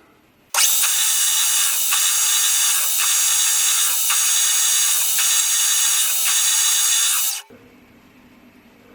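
Steady rasping noise of a metal lathe cutting, starting abruptly about half a second in and cutting off suddenly near the end, with a faint regular beat a little faster than once a second.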